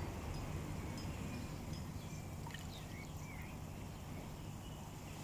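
Faint pond ambience: water trickling over a steady low rumble, with a few short bird chirps about two and a half seconds in.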